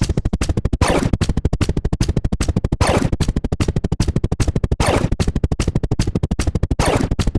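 A rapid, even string of short electronic sound-effect blips, about ten a second, broken every two seconds or so by a rising swoop.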